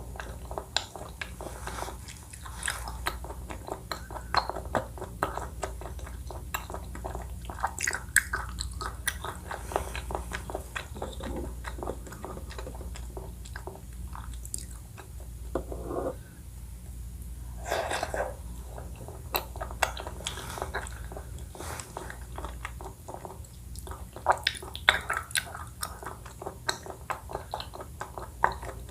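Close-miked chewing and biting with crisp crunches and wet mouth clicks: a person eating a Thai dessert in coconut milk.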